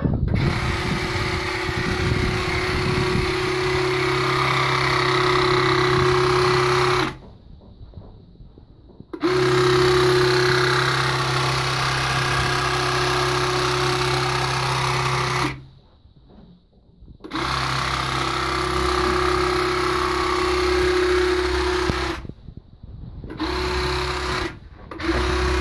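Graco X-Force HD handheld battery-powered airless sprayer spraying epoxy primer: its piston pump runs with a steady hum under the hiss of the spray. It comes in three long trigger pulls of about five to seven seconds each with short pauses between, then two short bursts near the end.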